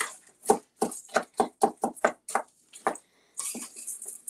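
Wooden spoon stirring a crumbly brown-sugar, butter and granola topping in a ceramic bowl, knocking against the bowl about three to four times a second, then a softer scraping of the mixture near the end.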